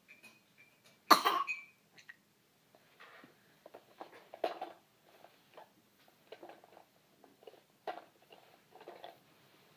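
A single loud cough about a second in, followed by a string of softer short sounds over the next several seconds.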